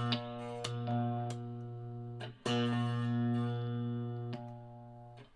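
Les Paul-style electric guitar with a low note ringing out, struck again about two and a half seconds in. Sharp clicks from the pickup selector switch and push/push pots come over the ringing and change its tone as the new coil-split and phase wiring is tested.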